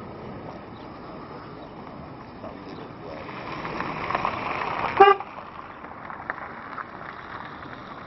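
A vehicle passing, its noise swelling over a couple of seconds, then one short horn toot about five seconds in, the loudest sound; steady outdoor background otherwise.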